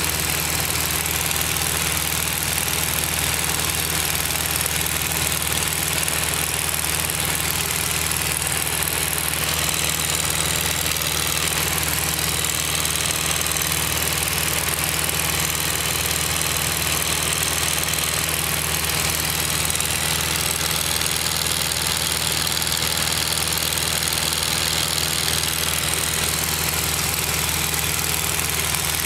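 Mooney Mite's small piston engine and propeller running steadily in flight, heard from inside the single-seat cockpit, with a constant rush of air over the airframe.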